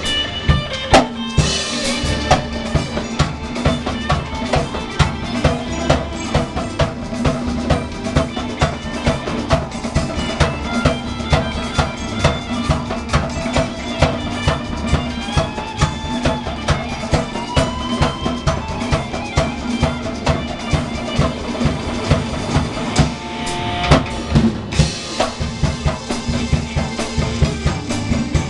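A drum kit played in a steady groove, with bass drum and snare hits and cymbals throughout. Other music plays along underneath, with held notes and a few bending notes in the middle.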